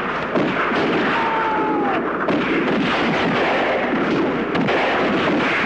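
Sustained rifle gunfire from a film gunfight, with many shots overlapping throughout. A falling whine runs from about one to two seconds in.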